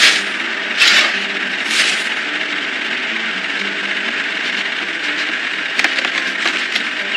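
Cartoon sound effects of an excavator loading a dump truck: a steady machine hum, with three short rushes of noise about a second apart at the start. About six seconds in comes a quick run of clicks and rattles.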